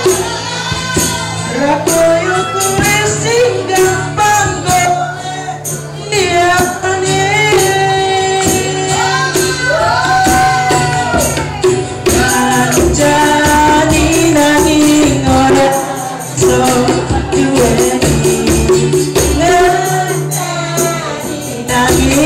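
Live acoustic band playing: a harmonica carries a bending melody over strummed acoustic guitar and hand percussion with jingles.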